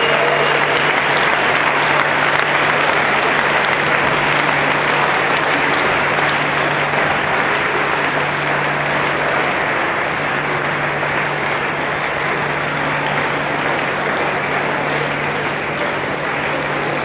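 A large crowd applauding steadily, easing off a little over the seconds, with a steady low hum underneath.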